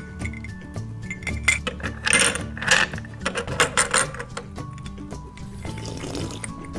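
Background music with light clicks and clinks of small toy pieces being handled, busiest about two to three seconds in.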